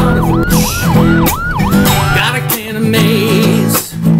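Guitar-backed music with an electronic police siren in fast yelp mode over it, rising and falling about three times a second, which stops about two seconds in.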